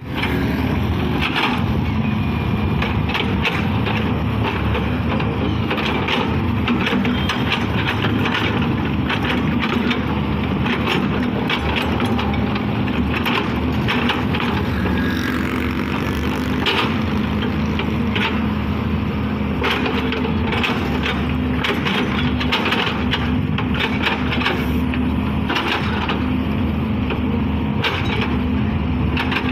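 Diesel engine of a Volvo EW145B wheeled excavator running steadily under work, with frequent sharp cracks and knocks scattered throughout.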